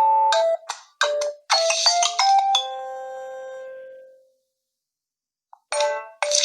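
Preset ringtones on a Nokia 1 Plus phone: a quick melody of short notes ends a little over two seconds in on a long fading note, and after about a second and a half of silence the next ringtone starts near the end.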